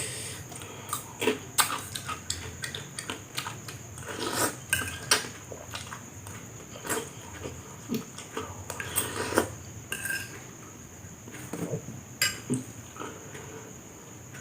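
Close-up eating sounds: chewing and slurping fried instant noodles, with cutlery clicking irregularly against the dish.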